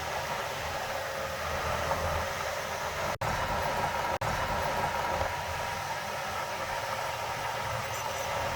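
Heavy earthmoving machinery's diesel engine running steadily, a noisy mechanical drone with low rumble. The sound cuts out briefly twice, about three and four seconds in.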